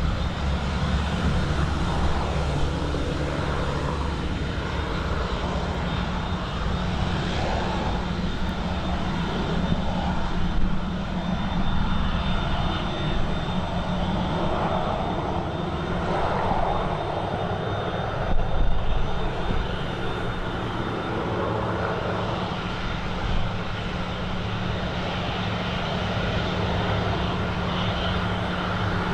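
Airplane engines running steadily, with a constant low hum and a thin high whine.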